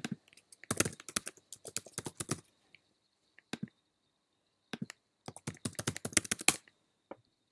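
Typing on a computer keyboard in two runs of keystrokes. The first lasts about two seconds, then comes a lone key press, then a second, quicker run near the end, followed by one last tap.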